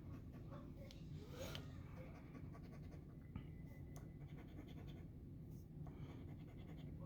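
Faint scraping of a scratch-off lottery ticket's coating being rubbed off, over a low steady room hum.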